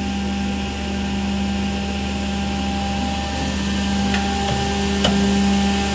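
Giben edgebander running: a steady motor hum with several steady tones, another tone joining about four seconds in, and a couple of light clicks near the end.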